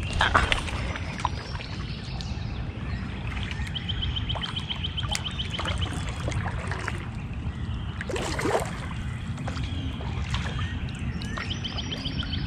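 Kayak paddling: paddle strokes and water splashing around the hull, with a couple of louder splashes or knocks near the start and about two-thirds through. A bird trills rapidly in the background twice.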